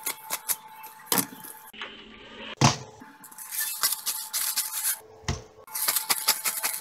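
Kitchen handling noises: scattered clicks and knocks of cookware and utensils being moved about, with a sharper knock about two and a half seconds in and a dull thump a little after five seconds.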